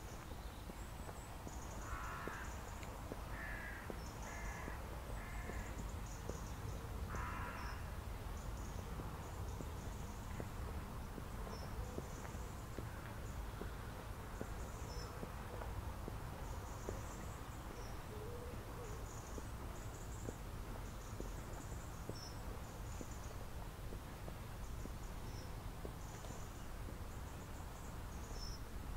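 Birds calling: short, thin, high chirps repeat throughout, and a run of five louder, lower calls comes between about two and eight seconds in, over a steady low rumble.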